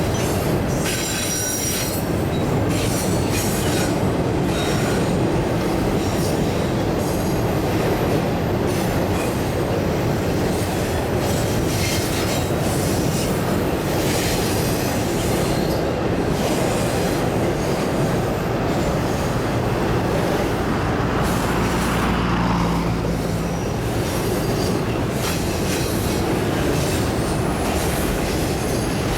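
Motorcycle riding at highway speed: steady wind rush on the microphone with road and engine noise underneath.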